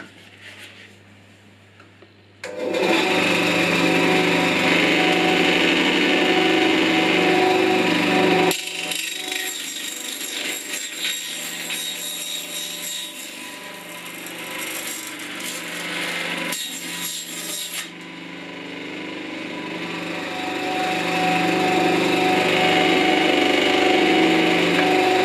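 Parkside PBS 350 A1 benchtop bandsaw switched on about two and a half seconds in, its motor and blade running with a steady hum. From about eight seconds in the blade cuts through a honeycomb cardboard panel with a scratchy, crackling noise for about ten seconds, then the saw runs free again and gets louder.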